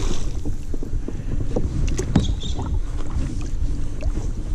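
Wind noise on a GoPro's microphone over water moving around a kayak, with a couple of sharp knocks about two seconds in.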